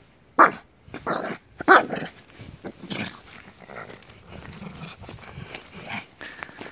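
Small dog barking and growling in play while tugging at a dried leaf. A few loud, sharp calls come in the first two seconds, then quieter ones follow.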